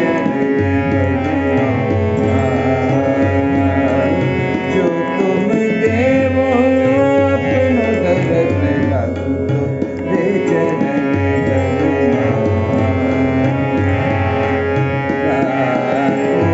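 A man singing a Hindustani classical vocal in raga Chandrakauns, his voice gliding and wavering over a steady drone and a drum rhythm.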